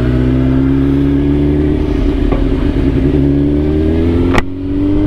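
Suzuki GSX-R1000 inline-four sport bike accelerating in gear, its engine note rising steadily, then cut briefly by an upshift about four seconds in before it picks up again at a slightly lower pitch.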